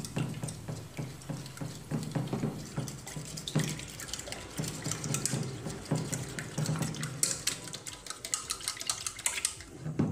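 A plastic fork whisking egg into milk in a stainless steel pot: quick, irregular taps of the fork on the pot with the liquid sloshing.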